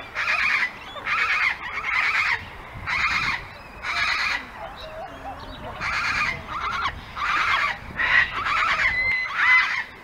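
A bird calling over and over, short calls of under half a second each, about one a second. A second bird gives a thin whistled note near the end.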